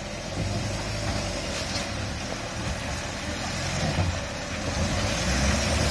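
4WD ute's engine working under load as it crawls through a deep, muddy rut, its revs rising and falling and climbing near the end.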